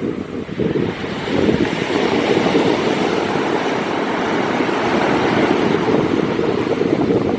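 Sea waves breaking and washing on the pebble shore of Shichiri-mihama, a continuous rushing surf that swells about a second and a half in.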